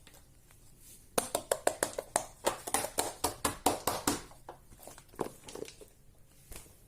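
Fidget toy being clicked quickly with the fingers: a run of sharp clicks at about six a second for some three seconds, then a few scattered clicks.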